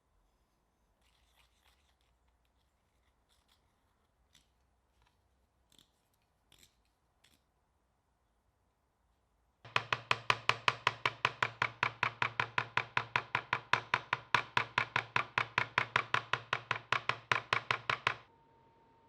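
Small hammer striking a Japanese chisel over and over, the kind of tapping used to set the hoop on the handle. There are faint light taps and clicks at first, then about halfway in a loud, even run of hard strikes, about five a second, each with a dull thud, that stops sharply after about eight seconds.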